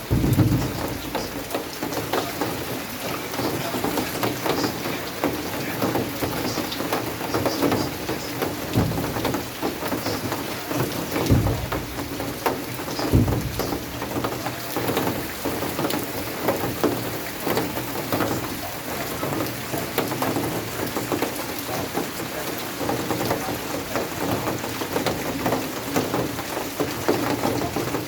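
Heavy rain falling steadily, with many sharp individual drops striking a hard surface close by. There is a low rumble right at the start and a few short low thuds later on.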